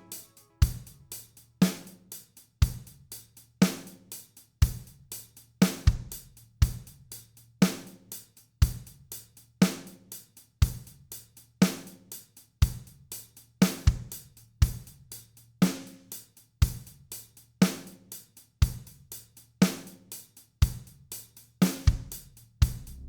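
Background music: a steady drum beat of evenly spaced strikes.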